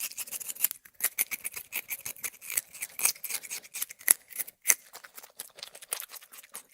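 Rabbit chewing, a rapid, irregular run of small crisp crunches and clicks.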